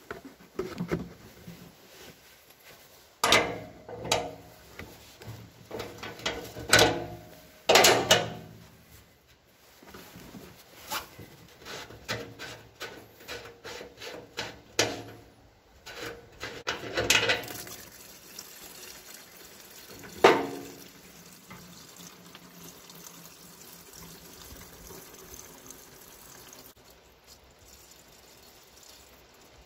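Clunks and knocks of a plastic container and metal parts being handled under a tractor's fuel tank. After about twenty seconds comes a faint steady trickle of fuel draining from the tank into the plastic container.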